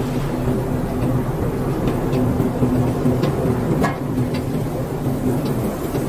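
Potato peeling machine running: a steady mechanical hum from its drive and spiral auger, with a few light knocks scattered through.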